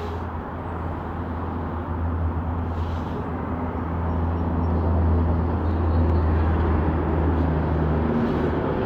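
A vehicle engine running as a low, steady drone with traffic noise behind it, growing louder over the first few seconds and then holding.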